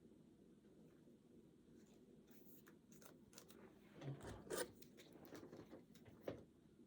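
Quiet handling of trading cards: faint rustling and sliding, with a few short scrapes about four seconds in and another near the end.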